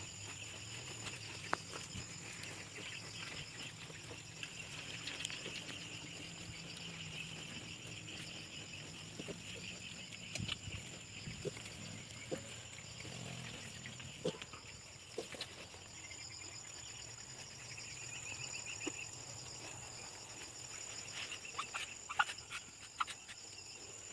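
Pigs grunting softly over a steady chorus of chirping insects, with scattered small clicks and knocks.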